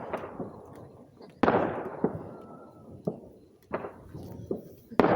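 Fireworks going off: a loud bang about a second and a half in and another near the end, each trailing off in a long echo, with lighter bangs and cracks between.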